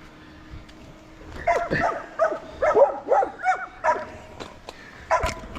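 A dog barking: a run of short barks starting about a second and a half in, then a short pause and a few more near the end.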